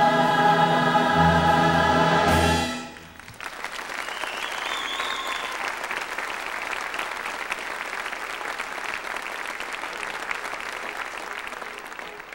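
Chorus and orchestra holding a final sustained chord that cuts off about three seconds in, then steady audience applause.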